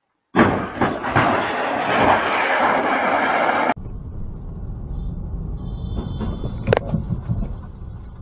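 Car crash caught on a dashcam: low road rumble, a brief high squeal, then one sharp collision bang about seven seconds in. Before it comes about three seconds of loud steady hiss, which ends abruptly.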